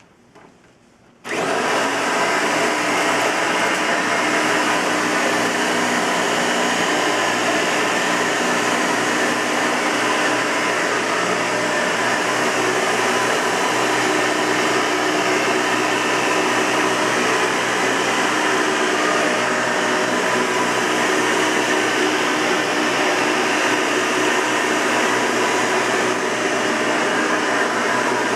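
Hoover Elite 200 bagged upright vacuum cleaner: a few light clicks, then the motor switches on about a second in and runs steadily with a constant whirring hum.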